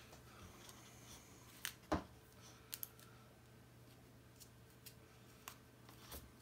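Scattered small plastic clicks and taps as tiny screwdriver bits are handled in a clear plastic bit holder, the loudest a sharp click about two seconds in and a quick double click soon after.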